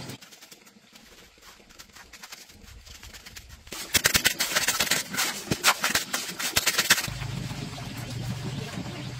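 Metal trowel scraping and chopping through a gritty cement-and-sand mix, rapid rough scrapes that grow loud about four seconds in and stop near seven seconds. A steady low hum follows.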